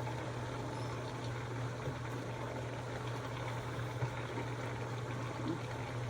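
A steady low hum with an even faint hiss over it and a few small clicks.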